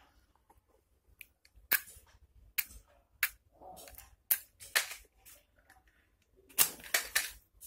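Irregular sharp clicks and taps of small objects being handled, about one every half second to second, with a closer run of clicks and a short scrape near the end.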